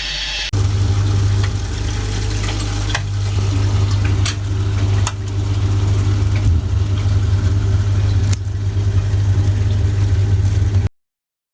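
A steady low machine hum, starting abruptly about half a second in, with a few sharp clicks over it, cutting off suddenly near the end.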